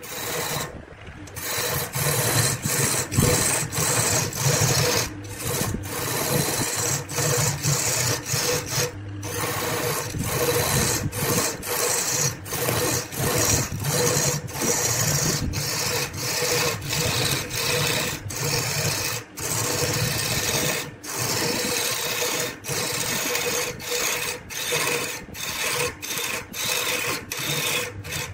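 A lathe chisel cutting into laminated wood as it spins on a wood lathe: a continuous scraping of shavings, broken by short gaps about once or twice a second, over the lathe's steady hum.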